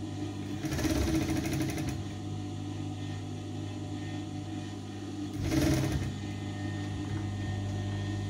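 Sewing machine stitching in two short runs, the first about a second long near the start and a shorter one later on, over a steady low hum.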